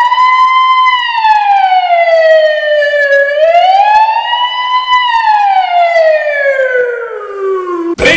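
A man imitating a police car siren with his voice: a slow wail that rises, falls, rises again, then sinks low and cuts off just before the end.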